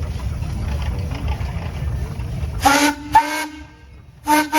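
A steam traction engine's whistle gives three short toots in the second half, over a low steady rumble that dies away as the toots begin.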